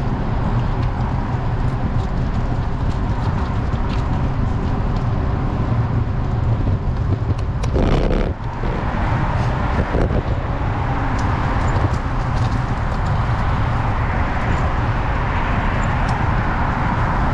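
Wind rushing over an action camera's microphone, with road noise, while riding a road bicycle. A brief louder rush comes about eight seconds in.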